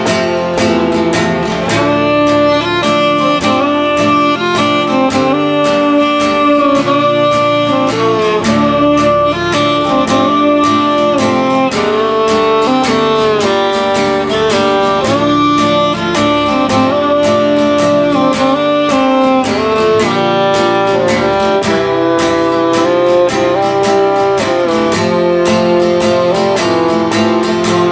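Instrumental break of a country-style song: a fiddle plays a melody in held notes over steadily strummed acoustic guitar.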